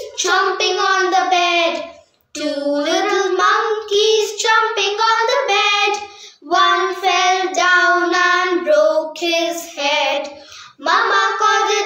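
A child's voice singing without accompaniment, in phrases of about four seconds with short breaks between them.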